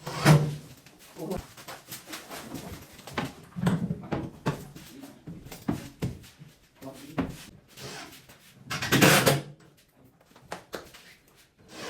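Irregular knocks and clatter of wood being handled and fitted, with a short louder burst of noise about nine seconds in.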